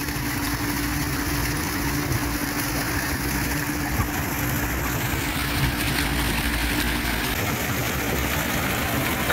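Small fountain jets splashing into a stone basin with a steady hiss, over a constant low hum.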